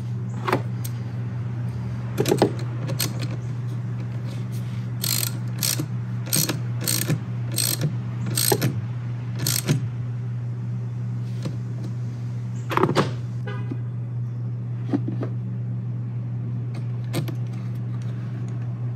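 Ratchet wrench clicking through a run of strokes, about two a second, from about five to ten seconds in, with scattered metal clinks, as winch cable terminals are tightened onto a car battery post. A steady low hum runs underneath.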